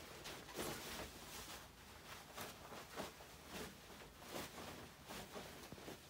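Faint, irregular clicks and knocks, about a dozen spread unevenly.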